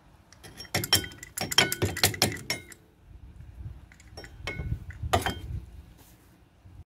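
Metal clinking and rattling as a just-removed brake caliper and hand tools are handled. There is a quick flurry of ringing clinks about a second in, then a couple more a little before five seconds.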